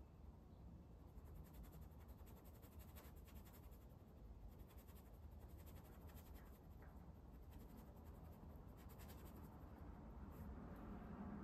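Faint scratching of a fine brush drawing oil paint across a stretched canvas in short repeated strokes, over a low room hum.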